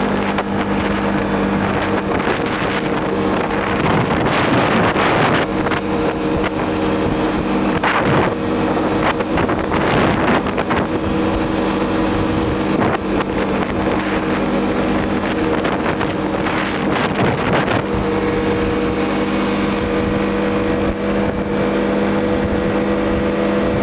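A motor vehicle's engine running steadily at a constant pitch while driving off-road, with gusts of wind noise on the microphone.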